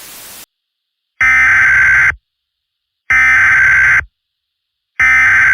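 Emergency Alert System SAME header: three loud data-tone bursts, each about a second long with about a second of silence between them. A faint static hiss cuts off about half a second in, before the first burst.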